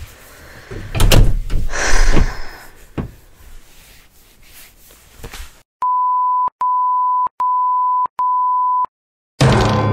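Muffled thumps and rustling right at a microphone, then four long steady beeps at one pitch, each just under a second, like a censor bleep. Near the end a loud struck chord of music starts and rings away.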